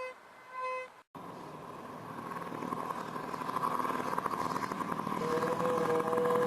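Short electronic beeps repeating about every three-quarters of a second, cut off abruptly about a second in. A noisy, vehicle-like drone then comes in and grows steadily louder, with a steady tone appearing near the end.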